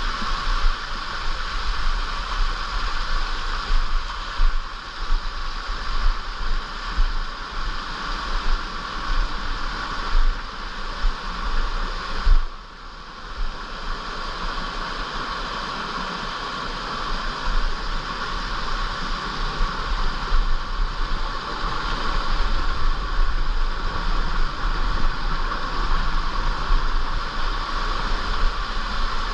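Steady rush of a mountain stream's flowing water, with a low rumble beneath. The sound dips briefly about twelve seconds in.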